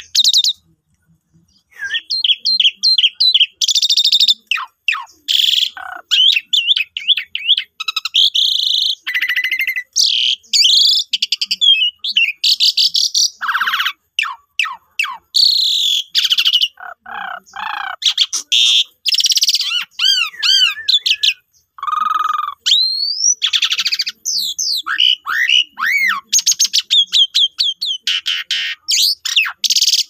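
Asian pied starling (jalak suren) singing a long, rapid, varied song of whistles, sweeping notes and harsh chattering notes, with a brief pause near the start.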